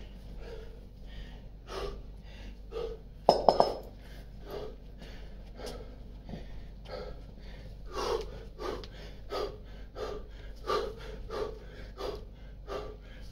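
A man breathing hard and fast while doing thrusters with a pair of 16 kg kettlebells, with forceful exhales in an even rhythm of about three every two seconds through the second half. About three seconds in, the two iron kettlebells clank sharply together a few times as they are brought up.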